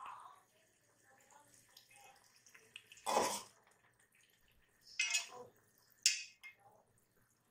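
A metal slotted spoon scooping and stirring through broth in an aluminium pressure cooker: three short clatters and splashes of spoon against pot and liquid, the loudest about three seconds in, the other two near five and six seconds.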